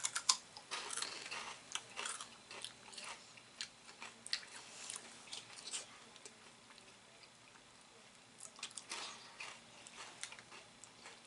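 Two people biting into Cheetos and chewing them, a run of sharp crunches that thins out in the middle and picks up again about nine seconds in.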